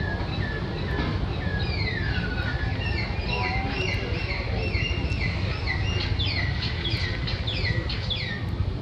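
Birds chirping: a quick run of short falling chirps that grows busier from about two seconds in, over a steady low rumble.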